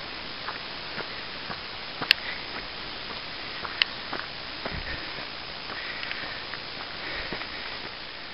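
Footsteps on a dirt hiking trail, about two steps a second, over a steady hiss, with two sharper clicks about two seconds and nearly four seconds in.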